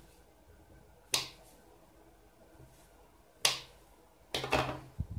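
Kitchen knife cutting through a rope of soft dough and tapping the cutting board beneath: a few sharp, separate taps a second or two apart, coming closer together near the end.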